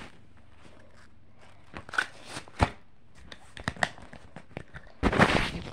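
Handling noise: scattered light clicks and knocks of the recording device being moved and set against things, then a louder rustle near the end.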